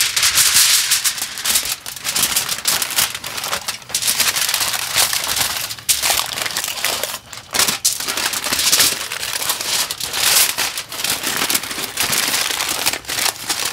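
Heavy-duty aluminium foil crinkling and crumpling as it is folded and pressed by gloved hands, wrapping a smoked beef short rib; a steady run of crackles with a few short pauses.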